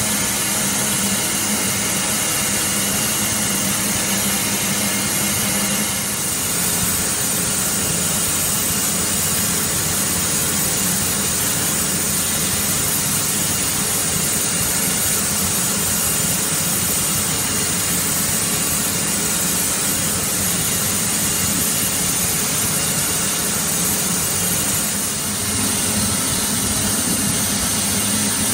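Large crankshaft grinding machine running as it turns a big engine crankshaft: a steady mechanical hum with a hiss of noise over it.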